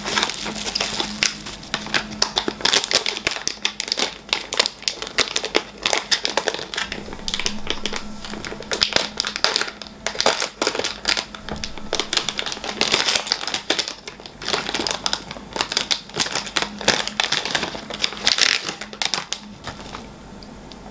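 Plastic packaging crinkling and rustling in irregular bursts as an item is unwrapped by hand, stopping about a second before the end.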